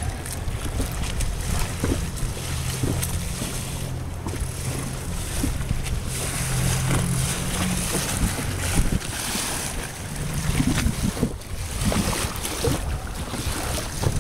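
Wind buffeting the microphone with water splashing against a boat's hull, over a low steady hum that fades after about eight seconds.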